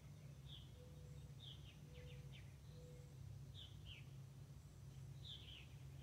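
Faint purple martin chirps: short, quick downward calls scattered through, a few in a row at times, over a low steady rumble.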